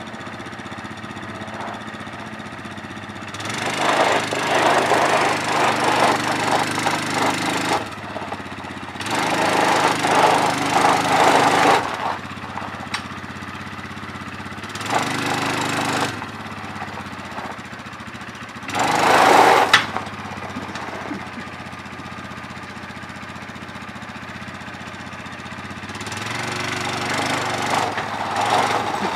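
ATV (four-wheeler) engine running, revved up in repeated surges of a few seconds each as it strains to back a boat on its trailer; the owner says it doesn't have a lot of power for that boat.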